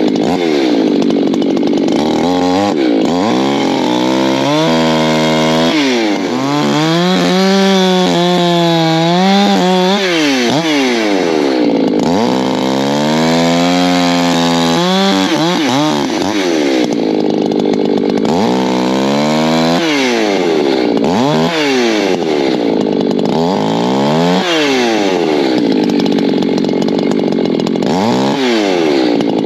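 Two-stroke Echo chainsaw bucking oak logs into firewood rounds. The engine pitch sweeps up and down again and again as the saw revs, loads in the cut and frees up between cuts.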